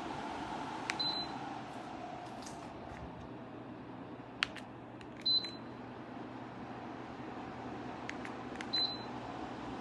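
Dreo Cruiser Pro tower fan running with a steady rush of air, beeping three times with short high beeps as its settings are changed. The air noise drops a little after the first beep.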